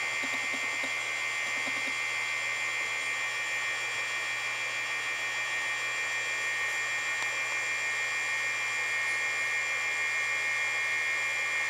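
A steady, high-pitched insect drone that holds unchanged throughout, with a few faint, short low pulses in the first two seconds.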